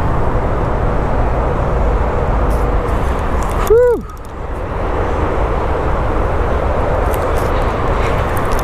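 Wind buffeting the microphone, a steady loud rush with heavy low rumble. About four seconds in there is one short pitched call that rises and then falls.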